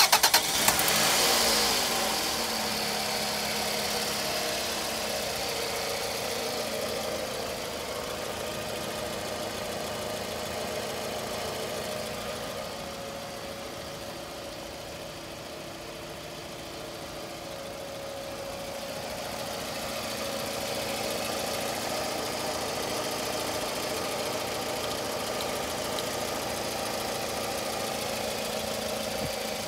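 A 2003 Toyota RAV4's 2.4-litre 2AZ-FE four-cylinder petrol engine cranks briefly and catches, flares up for a second or two, then settles into a steady idle. The idle sounds quieter for a few seconds in the middle.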